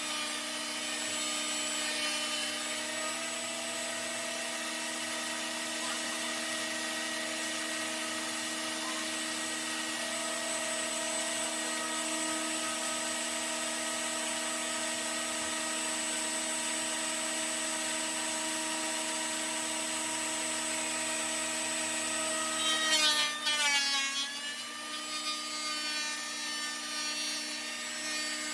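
Ridgid 13-inch benchtop planer running steadily with a whining motor and cutterhead, planing rough chainsaw-milled wood planks. About 23 seconds in it gets louder and its pitch dips and then recovers, the motor loading under the cut.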